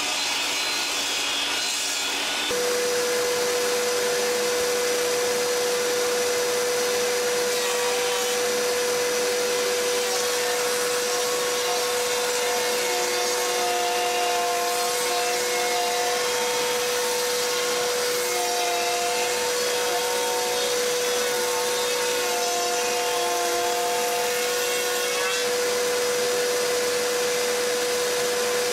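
Electric wood router spinning with a steady high whine while cutting small grooves and rounding edges in wood, a shop vacuum running along with it for dust extraction. The whine sets in about two and a half seconds in, with its pitch wavering now and then as the bit cuts.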